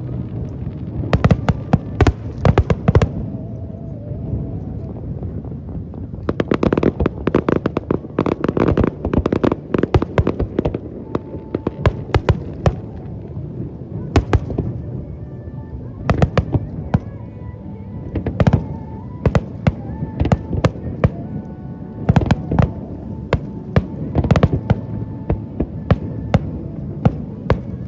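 Fireworks display: rapid, dense clusters of shell bursts and crackling, with short lulls between the volleys.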